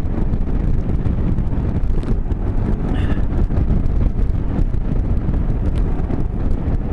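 Motorcycle engine running steadily under way, with wind and road noise rushing over the microphone.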